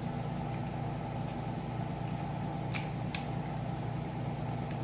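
Room air conditioner running with a steady, loud hum. Two light clicks a little past halfway.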